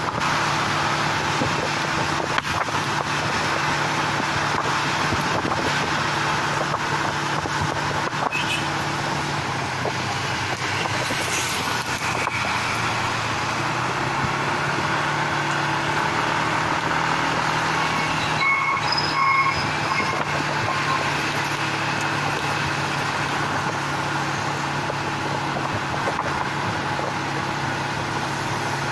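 Motor vehicle engine running steadily while riding along a road, with wind and road noise. A few short high beeps sound about two-thirds of the way through.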